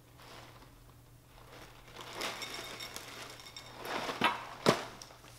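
Plastic liner bag and cardboard cereal box crinkling and rustling as the box is handled and lifted. Two sharp taps come near the end, the second the loudest.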